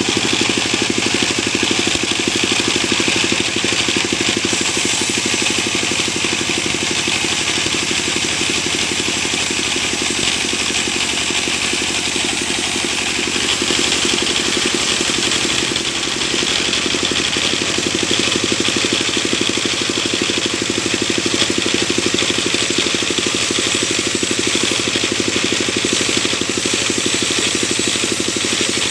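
Sawmill machinery running steadily: an engine's even note, with no clear start, stop or cut.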